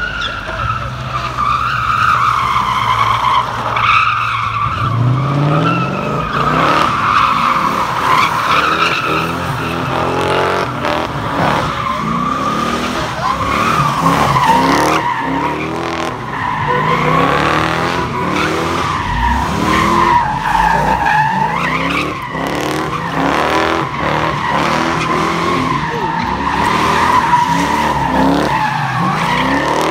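Yellow Pontiac GTO doing a burnout and donuts: a high tyre squeal with the V8 revving up about four seconds in, then rising and falling over and over as the wheels spin.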